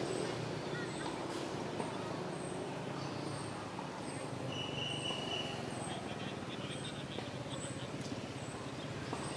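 Outdoor park ambience: a steady low background hum with a short, thin, high chirp repeating a little more than once a second, and one brief whistle-like note about halfway through.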